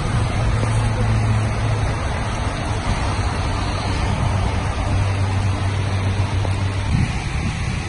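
A truck engine running at a steady idle, a low even hum under a broad rushing noise; the hum wavers briefly about seven seconds in.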